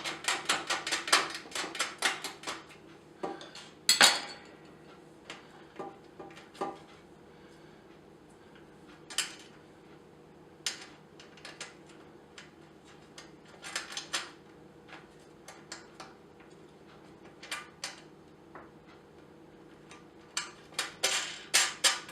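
Small metal hardware clinking and clicking as washers and wing nuts are handled and fitted onto the barbecue's carriage bolts. A quick run of clicks comes first, then one louder knock, then scattered clinks with pauses between them.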